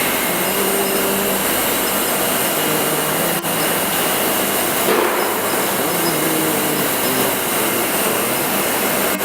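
Steady din of magnet wire production machinery in a factory workshop: a dense, even noise with faint steady hums, broken by a brief dropout about three and a half seconds in.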